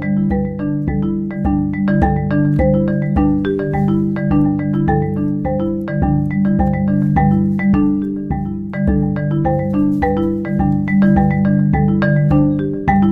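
Background music: a light, bouncy tune of short struck notes over a steady beat.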